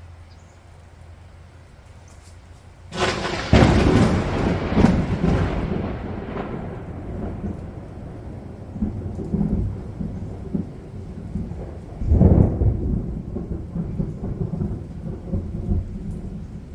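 Thunder during a rainstorm: a sudden loud thunderclap about three seconds in that rumbles away over several seconds, and a second clap near the end, with rain falling steadily throughout.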